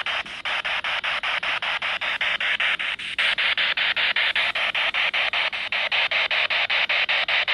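Spirit box sweeping through radio stations: a steady hiss of static chopped into even pulses about seven times a second, growing slightly louder about three seconds in.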